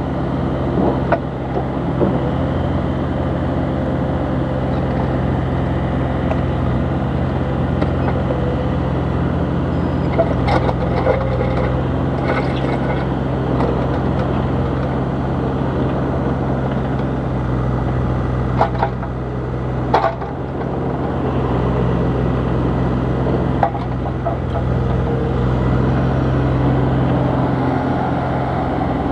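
Bobcat E32 mini excavator's diesel engine running steadily, with a few sharp clanks from the machine now and then.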